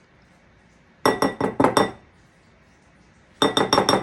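A utensil clinks repeatedly against a mixing bowl, as if knocking melted cream cheese off into the bowl. There is a quick run of about five ringing clinks a second in, then another run of about seven near the end.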